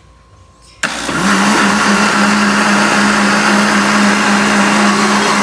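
Mondial countertop blender switched on about a second in, then running steadily with a low hum, churning açaí berries in water to strip the pulp and skins from the seeds.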